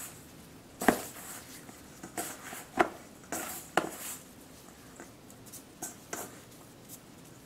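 Gloved hand mixing cornstarch-coated beef slices in a stainless steel bowl: soft rustling and squishing with irregular knocks of hand and meat against the bowl, the sharpest about a second in and near three and four seconds.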